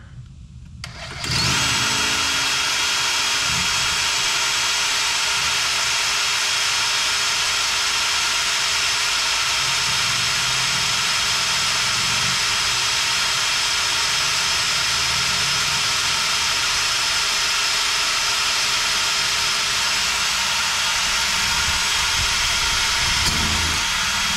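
Cordless drill running steadily under load, drilling a cotter-pin hole through the steel threaded stud of a new tie rod end; it starts about a second in.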